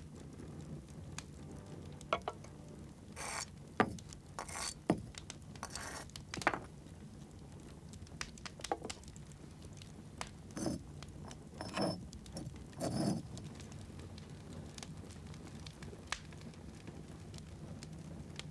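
Loose bricks being lifted and set back into a brick wall: scattered short clinks, knocks and scrapes, about a dozen at irregular intervals.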